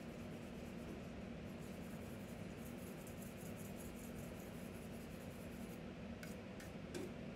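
A steady low hum under light scratching, with three short clicks near the end.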